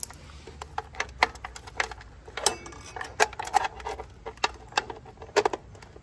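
Irregular clicks, taps and light knocks of e-bike parts being handled: a wiring cable and the battery mount plate with its plug connectors rattling against the frame and battery housing as the cable is worked into place.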